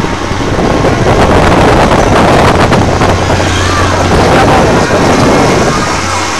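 A carnival ride running: a loud, steady mechanical rush with a low hum underneath.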